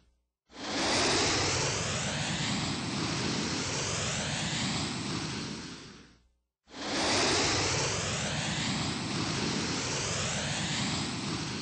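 Vintage GEC Mistralaire ceiling fan running, a steady whoosh of moving air over a motor hum. The sound fades out and returns twice, with about half a second of silence between stretches.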